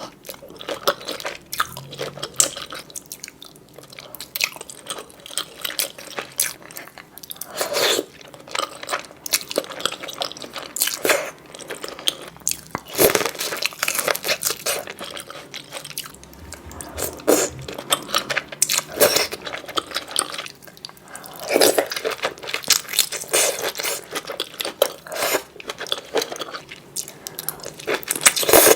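Close-miked eating: seafood being bitten and chewed, with many irregular sharp cracks and crunches throughout.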